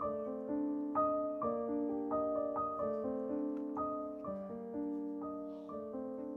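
Background piano music: single notes and chords struck at an unhurried pace and left to ring.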